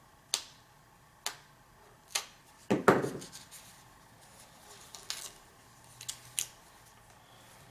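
Packaging being cut and opened by hand: a series of sharp snips and clicks, spaced out, with a quick cluster of them about three seconds in.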